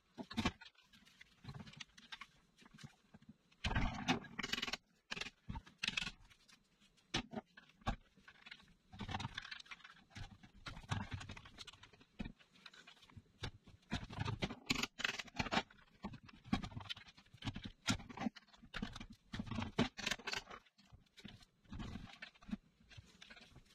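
Irregular metal clinks, knocks and scrapes as a differential carrier with its ring gear is handled and worked on while resting on a galvanised steel bucket.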